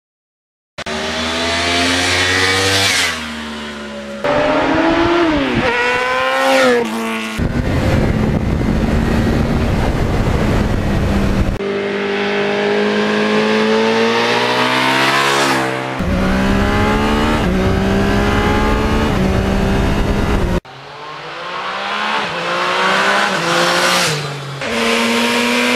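Motorcycle engines revving hard under acceleration and passing by, in a string of short spliced clips. The pitch climbs through the gears and drops as a bike goes past, and the sound changes abruptly at each cut.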